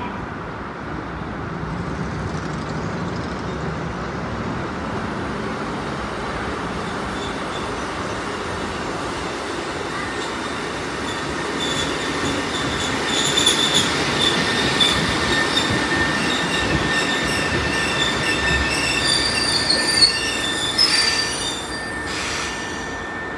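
Kotoden 1080 series electric train rolling along the track with a steady rumble. About halfway through it grows louder, and the wheels squeal in several high, steady tones.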